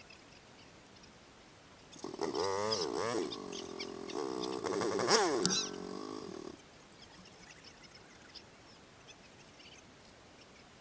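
Off-road vehicle engine revving up and down several times, its pitch dipping and climbing with the throttle, then dropping away about six and a half seconds in.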